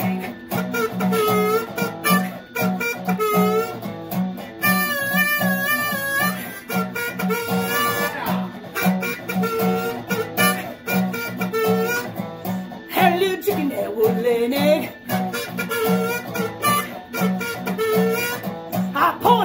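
Harmonica playing a blues melody with bent notes over a steady guitar rhythm, with a fast warbling trill about five seconds in. The harmonica is in the wrong key for the backing, as the player admits.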